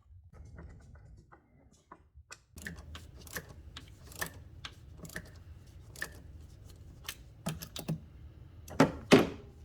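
Irregular light clicks and knocks of engine-bay air intake parts being handled and fitted back into place, over a faint low hum.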